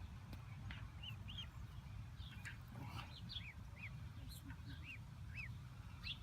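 Ducklings peeping: faint, short, high chirps coming irregularly, about two a second, over a low rumble.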